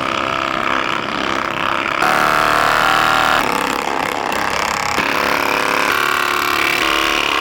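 A small motor running steadily; it gets louder and brighter about two seconds in and changes tone again a moment later.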